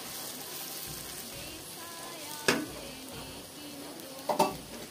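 Onions with ginger-garlic paste and spices sizzling in hot oil in a pan as they are stirred with a wooden spatula: the masala frying down. Two sharp knocks, one about halfway through and one near the end, from the spatula striking the pan.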